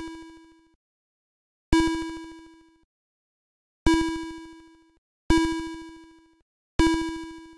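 Atari ST computer-generated bounce sound effect: a buzzy, bell-like tone struck sharply and fading out over about a second, repeated four times at uneven intervals of one and a half to two seconds, each marking the bouncing ball in the demo hitting an edge.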